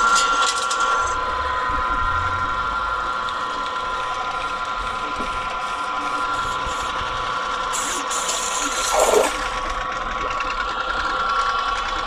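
Heavy-duty electric pressure washer, an electric motor driving its pump, running with a steady mechanical hum and whine. The machine had been stuck and is now running again. There is a brief hiss about nine seconds in.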